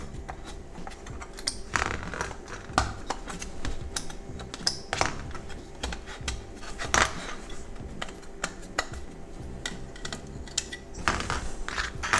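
Irregular light clicks and taps of small plastic and metal parts being handled: gauge stepper motors pressed out of an instrument cluster's circuit board after their pins have been desoldered.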